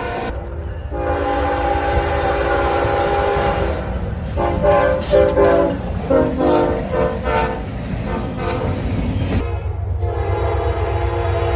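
Locomotive air horn played as a horn show: a long multi-note chord, then a string of short, rapid blasts in the middle, and another long blast starting near the end, over the steady low rumble of the passing train.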